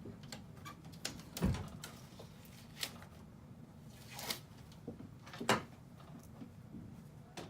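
Scattered knocks and clicks of things being handled, the loudest a knock with a low thump about one and a half seconds in and a sharp click about five and a half seconds in.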